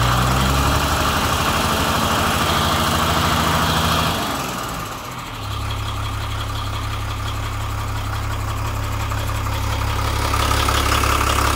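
Six-cylinder diesel truck engine running at idle while blowing white exhaust smoke from its tailpipe. The engine note dips briefly about five seconds in, then settles into a steady low idle.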